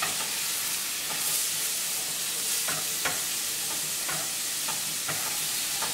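Shrimp and squid sizzling in hot oil in a frying pan, with a steady hiss. A wooden spatula stirs them, scraping and knocking against the pan several times.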